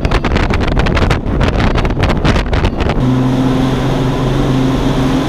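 Bass boat under way, powered by an Evinrude 250 V6 two-stroke outboard. For the first three seconds wind buffets the microphone in rapid gusts over the rush of the hull. At about three seconds the buffeting stops suddenly and the outboard's steady hum comes through.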